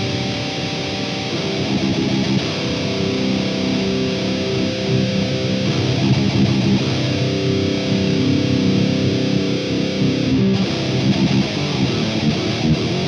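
Heavily distorted electric guitar played through the Klirrton Grindstein plugin, an HM-2-style Swedish chainsaw tone, riffing with held chords; the EQ pedal's Dozer control is turned up, adding low, rumbly low end.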